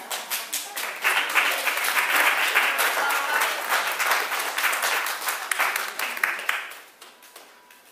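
Congregation applauding, a dense patter of many hands that builds quickly about a second in and dies away near the end.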